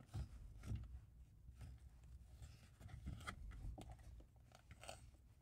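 Faint, scattered small clicks and rustles of hands handling a car's plastic shift surround trim and shift boot with a pair of pliers.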